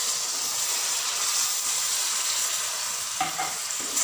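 Water poured into hot oil and fried masala with black chickpeas in an aluminium pot, sizzling with a steady hiss. The oil is very hot, having separated from the well-fried masala.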